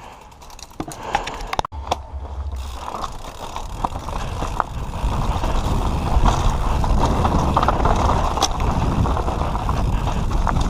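Santa Cruz V10 downhill mountain bike ridden down a rough dirt track: scattered clicks and rattles at first, then the rumble of tyres over broken ground and wind noise growing louder from about two seconds in as it picks up speed.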